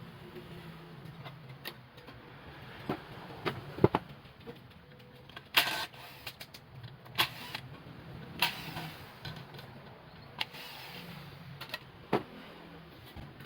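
Scattered single clicks and knocks at irregular intervals over a low steady hum.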